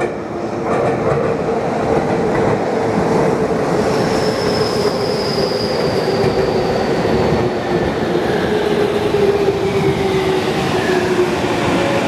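Tokyu Toyoko Line stainless commuter train running past, its VVVF inverter and traction motors giving a steady whine that slowly falls in pitch as the train slows. A higher tone slides down about four seconds in, over a continuous rumble of wheels on rail.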